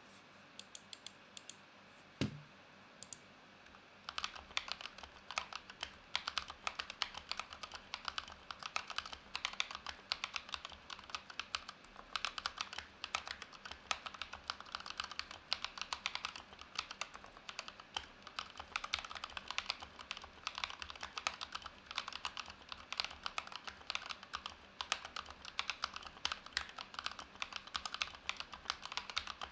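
Typing on a GMMK Pro mechanical keyboard in its factory setup: a few scattered key presses and a single low thump about two seconds in, then steady fast typing from about four seconds in.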